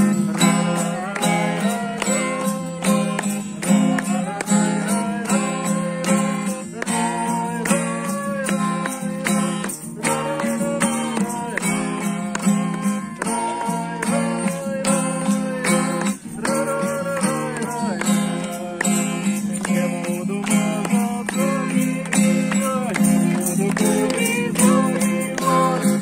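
A group of people singing a song together to a strummed acoustic guitar.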